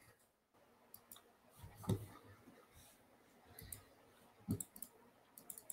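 Faint, scattered clicks of a computer mouse, a handful spread through, the loudest about two seconds in and about four and a half seconds in, with a quick cluster near the end.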